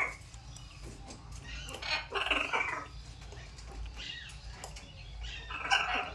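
Parrots squawking in three harsh bursts: a long call about two seconds in, a short one about four seconds in, and another near the end.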